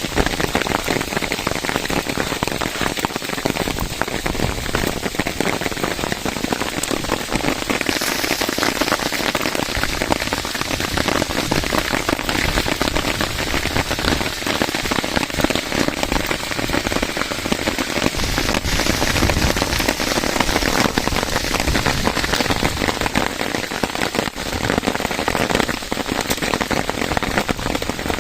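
Heavy rain falling, with many drops pattering on surfaces, growing hissier and more intense about eight seconds in.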